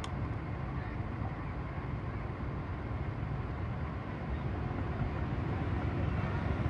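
Steady low rumble of a vehicle with outdoor background noise, slowly getting a little louder toward the end.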